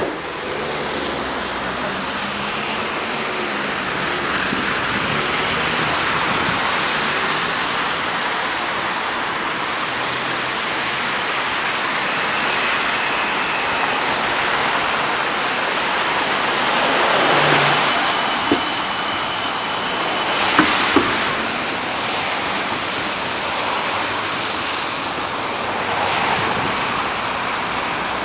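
Steady road-traffic noise of cars driving on a wet, slushy road, with a few brief sharp knocks about two-thirds of the way in.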